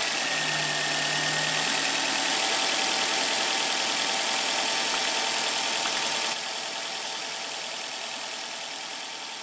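Nissan QR25DE 2.5-litre four-cylinder engine idling steadily just after being started, running on newly fitted spark plugs as a check of the plug change. The sound turns quieter about six seconds in.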